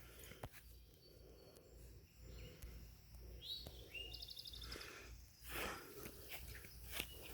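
Faint outdoor quiet with a bird calling briefly about halfway through: a couple of gliding chirps and a quick trill of about half a dozen notes. A short rustle follows near the end.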